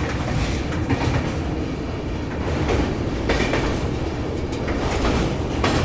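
Passenger train running across a steel truss bridge, heard with the phone held just outside the coach: a steady rumble and rattle of wheels on the bridge rails, with a few louder clatters.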